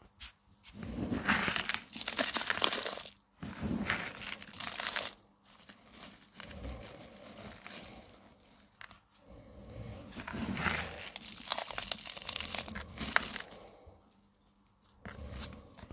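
Gritty potting mix of clay pebbles and gravel crunching and rustling as fingers press and work it around a cactus, in several irregular bursts of crackling.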